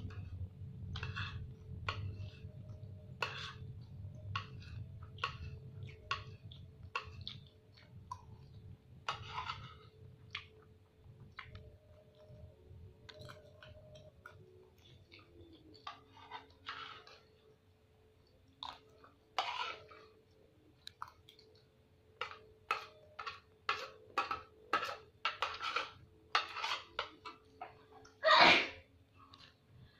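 A person eating close up: irregular chewing and mouth sounds, with light clicks of a metal spoon against a plate. Near the end there is one loud burst of sound.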